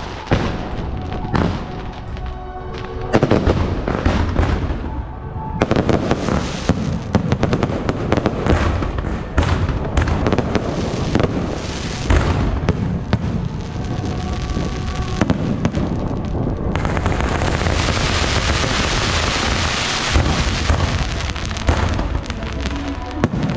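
Fireworks display: repeated bangs of shells launching and bursting, with crackling between them. About 17 seconds in, a dense, unbroken crackle takes over for several seconds.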